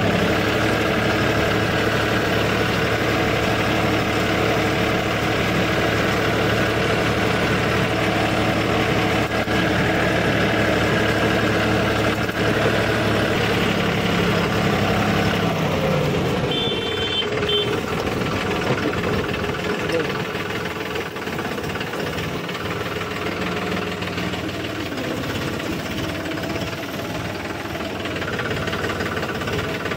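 A tractor's diesel engine running as it drives along a road. The engine note drops about halfway through.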